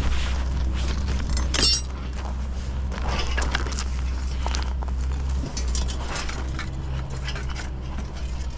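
Building-site work: irregular light clinks and knocks of tools and materials being handled, over a steady low hum.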